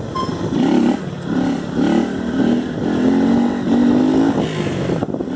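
Motorcycle with a gutted (desmiolado) exhaust revving in a run of short throttle pushes, each rising a little in pitch, over wind noise.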